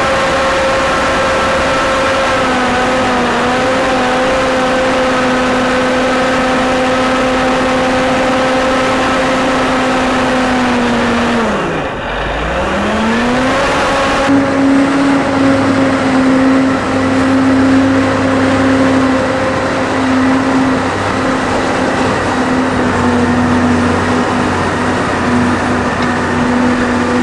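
Caterpillar 988A wheel loader's diesel engine running steadily at high revs. About halfway through, the revs drop sharply and climb back within two seconds, then it runs on steady at a slightly higher pitch.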